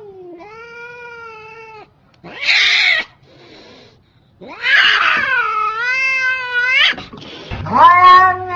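Angry domestic cat yowling: a long wavering low call, then a short loud hiss about two seconds in. A louder drawn-out yowl follows, and another begins near the end.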